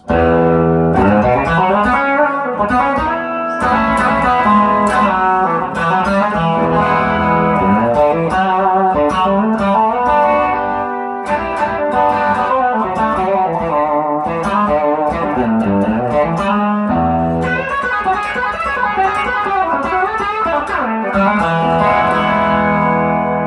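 1957 Fender Esquire electric guitar plugged straight into a 1965 Fender Deluxe Reverb amp, playing a continuous run of picked notes and chords. The selector is in the forward position, where an added capacitor gives a bassier, P90-ish tone.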